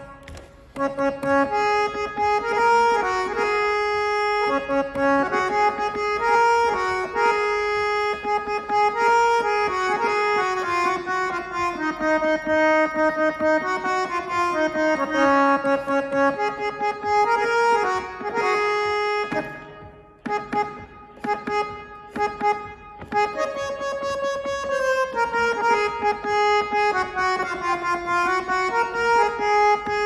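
Hand-pumped Indian harmonium (vaja) playing a short melodic tune: reedy, sustained notes moving up and down in steps, with a brief pause about two-thirds of the way through before the melody resumes.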